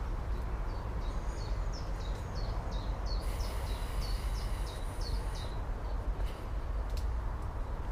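A songbird singing a quick run of repeated high notes, about three a second, which stops about five and a half seconds in, over a steady low rumble and outdoor background noise.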